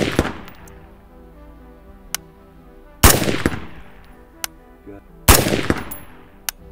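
PSA Freedom AR-15 rifle firing slow single aimed shots, a group shot to check its accuracy after about 5,000 rounds. One shot is ringing out at the start, then two more, a little over three seconds in and about five seconds in, each ringing out for about a second.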